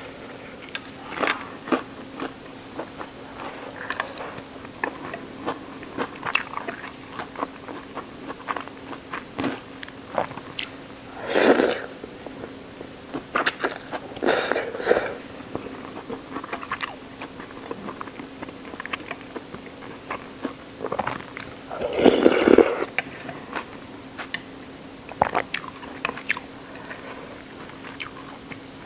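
Close-miked eating: short crunching bites and chewing of breaded fried shrimp, broken by three longer, louder slurps of ramen noodles about a third of the way in, around the middle, and about three-quarters of the way through.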